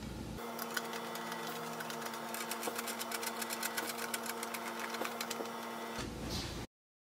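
Rapid, irregular ticking as a hand screwdriver drives a screw through a metal bracket into a pinewood rail, over a steady hum. The sound cuts off abruptly near the end.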